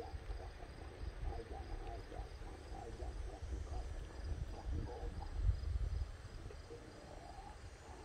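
Insects chirping in a faint, regular high pulse, over low rumbling and rustling from movement down a steep dirt slope, loudest about five and a half seconds in.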